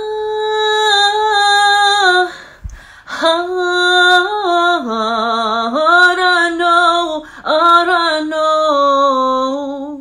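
A woman's solo voice singing slow, long-held notes without accompaniment. The first note is held about two seconds, then after a short break she sings on in phrases that step down and back up in pitch.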